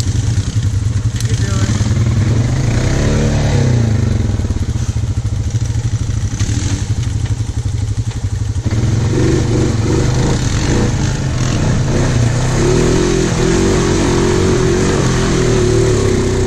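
Honda Foreman 500 ATV engine running, revving up and back down about three seconds in. From around nine seconds it pulls steadily at higher revs.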